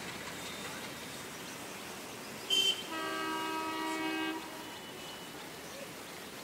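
A railway locomotive horn sounds one steady blast of about a second and a half, just after a short, loud, high-pitched toot, over a steady background hiss.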